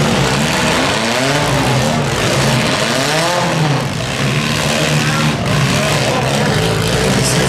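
Several demolition derby economy-compact car engines running together, revving up and falling back twice, over steady engine and tyre noise.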